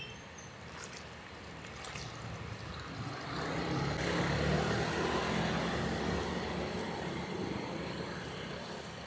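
A thin stream of red liquid poured from a metal pot into a large steamer of thick rice-cake batter: a steady splashing pour that swells about three seconds in and slowly eases off. A couple of light metal clinks come before it.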